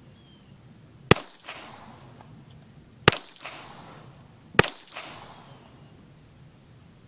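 Three shots from a High Standard Sport King .22 LR semi-automatic pistol, about two seconds and then a second and a half apart. Each sharp crack is followed a fraction of a second later by a fainter second crack that dies away briefly.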